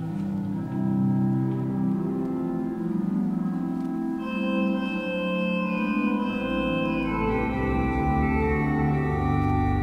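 Church pipe organ playing held chords, with higher notes joining about four seconds in and deep pedal notes coming in about six and a half seconds in.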